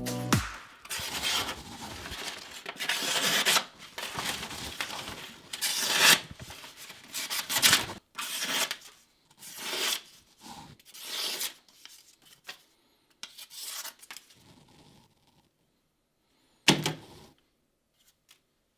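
Knife blade drawn in a series of rasping, rubbing strokes across cardboard, one every second or two. The strokes grow sparser and quieter, then a single last stroke comes near the end.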